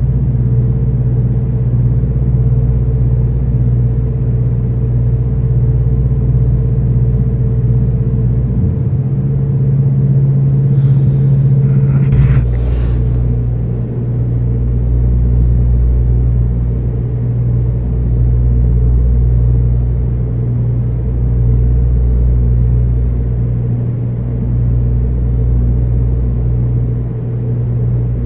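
Low machine drone: a steady rumble with a strong hum, its deepest part easing off briefly about every three and a half seconds in the second half. The resident takes it for machine noise from a neighbouring apartment.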